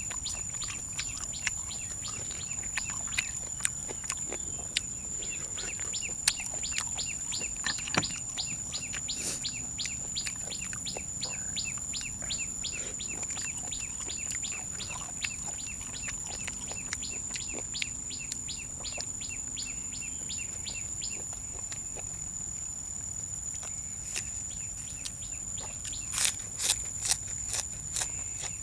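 Insects singing with one steady high-pitched drone, while birds chirp in quick repeated notes. A few sharp clicks come near the end.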